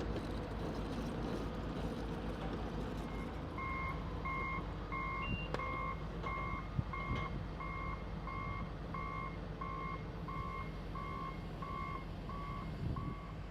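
Backup alarm of a construction machine beeping evenly at one pitch, about one and a half beeps a second, starting a few seconds in. Under it is the steady low rumble of running equipment.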